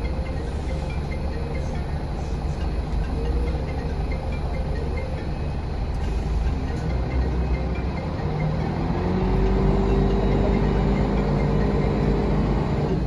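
Cabin sound of a 1999 Volvo B10L bus under way: steady diesel engine and road rumble. About eight and a half seconds in, the engine note rises slightly and grows louder, then holds.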